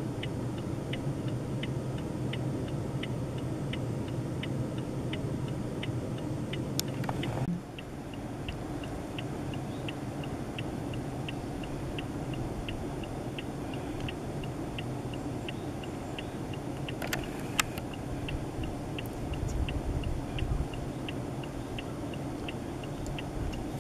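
Steady low outdoor rumble with a faint, very regular high tick about three times a second; a few sharp clicks about seventeen seconds in.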